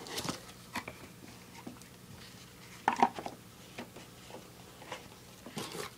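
Faint handling noises as things are cleared off a mini tabletop pool table: scattered light knocks and clicks, with one sharper knock about three seconds in.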